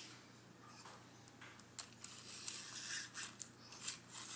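Metal tape measure being handled: scraping and a run of short clicks, starting about two seconds in.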